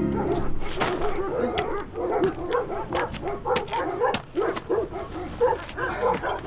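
Several dogs barking and yelping, short overlapping calls in quick succession.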